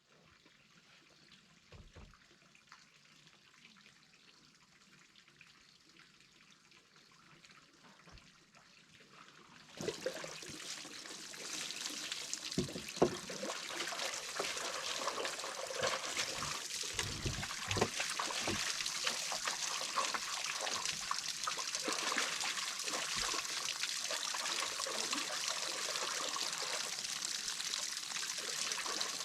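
Water running and trickling steadily, with scattered knocks and splashes. It starts suddenly about ten seconds in, after a quiet stretch with a few faint knocks.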